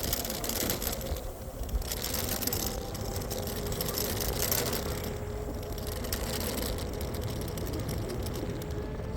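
Wind and road noise while riding a Speedway Mini 4 Pro electric scooter, a steady rush with gusts buffeting the microphone. A faint, steady whine sits underneath.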